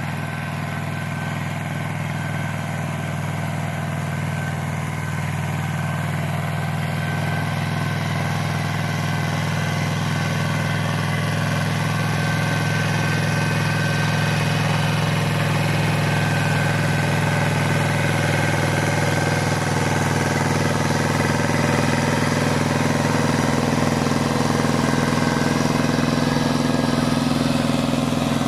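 Pasquali 425 compact 4x4 tractor's engine running steadily under load, driving a Maschio rotary tiller that churns the orchard soil. It grows slowly louder as the tractor comes closer.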